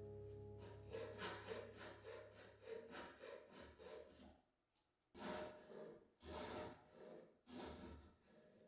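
Faint repeated rubbing strokes on wood, about three a second at first, then slower and longer strokes, after background music fades out in the first second.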